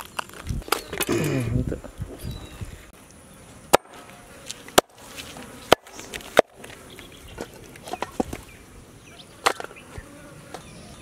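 Meat cleaver chopping through a whole chicken on a wooden board: several sharp chops at irregular intervals, with a louder, busier patch of sound about a second in.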